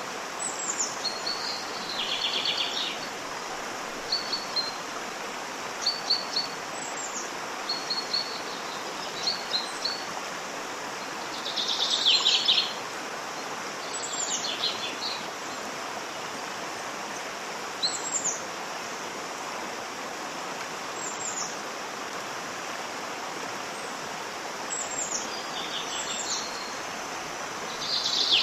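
Steady rushing of a waterfall, with small birds chirping and calling over it in short, frequent notes. A few louder bursts of birdsong come about two seconds in, around the middle, and at the very end.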